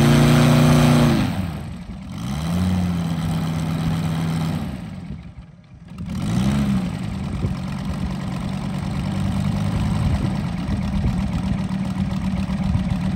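Engine of a large-scale RC model airplane running. Its pitch drops as it throttles back about a second in, it rises and falls briefly twice, then it settles into a steady note.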